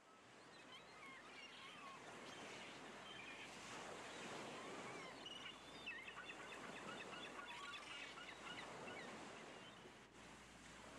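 Faint outdoor ambience fading in: many birds chirping in quick, short calls over a steady rushing noise.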